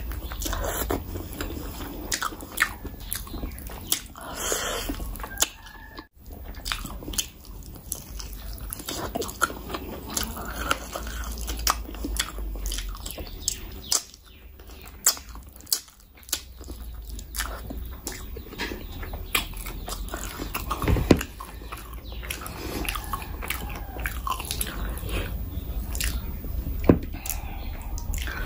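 Close-miked chewing and wet mouth sounds of a person eating biryani rice and curried meat by hand: many small smacks and clicks throughout, with a few louder smacks near the end.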